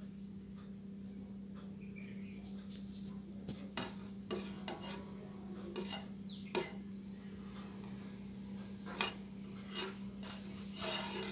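Small cutting pliers snipping and handling the wire leads of an electrolytic capacitor: several sharp metallic clicks a few seconds apart, with a short rattle of handling near the end, over a steady low hum.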